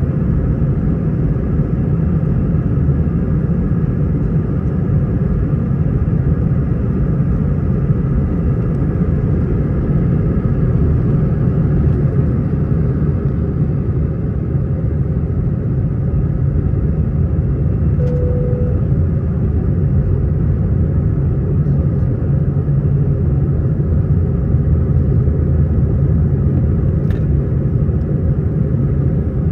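Airbus A319 jet engines and airflow heard inside the passenger cabin as a loud, steady rumble.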